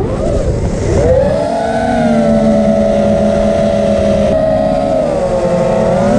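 Whine of a 5-inch FPV quadcopter's T-Motor F40 III 2306 brushless motors and propellers. The pitch rises about a second in, holds steady for a few seconds, then shifts and dips near the end, with rough low wind and propeller noise underneath.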